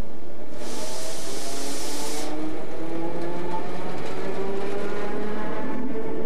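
Red regional electric multiple unit of the EBT/SMB/VHB Emmental railways running past close by. A loud burst of hiss starts about half a second in and lasts under two seconds. Then comes a whine of several tones that shift in pitch as the carriages roll past.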